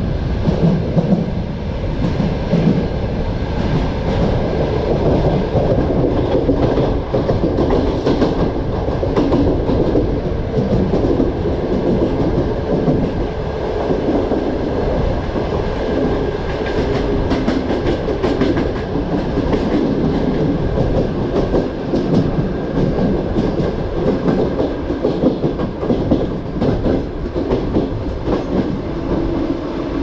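A passenger train's coach rolling along at speed, heard at an open window: a steady rumble of the wheels on the track with the clickety-clack of the wheels over rail joints.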